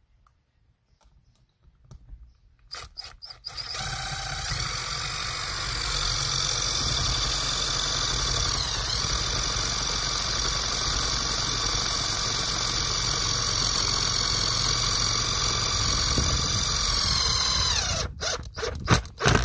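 Cordless drill-driver driving a long wood screw up through a plywood plate: after a few clicks the motor runs steadily with a high whine for about fourteen seconds, dipping briefly in speed partway, then winds down near the end as the screw seats.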